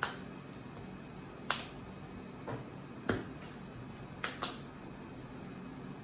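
Sleeved trading cards being slapped down and tapped on plastic-covered playmats: about half a dozen sharp, separate clicks a second or so apart, two of them close together after about four seconds.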